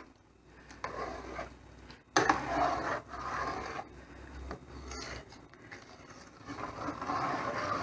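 A spoon stirring thick soup in a pot, scraping and rubbing against the pot in irregular spells, with a sharper scrape about two seconds in.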